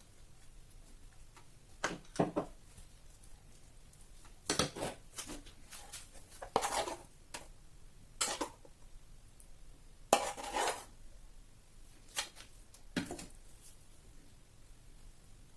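Kitchen utensils and dishes clinking and scraping, a series of short clatters a second or two apart.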